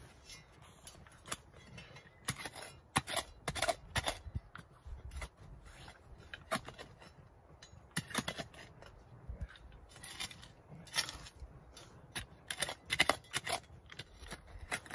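Wood campfire crackling and popping: irregular sharp snaps in loose clusters, the loudest bunches about three seconds in and again near the end.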